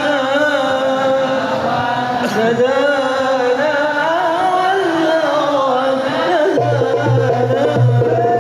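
Solo voice singing a slow, ornamented devotional melody in a Middle Eastern style. A low, steady beat comes in about six and a half seconds in.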